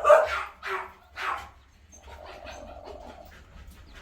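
A dog barking, a few short barks in the first second and a half, then quieter.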